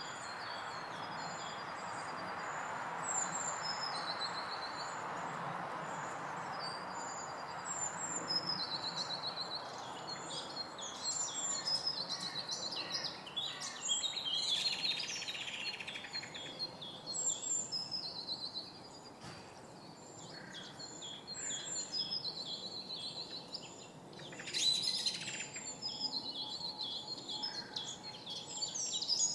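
Several small birds singing and calling in woodland, with overlapping high trills and chirps throughout, over a steady background rush that fades after the first few seconds.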